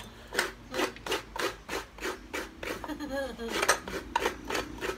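A coconut half being grated by hand against a coconut grater, a rhythmic rasping scrape of about two to three strokes a second.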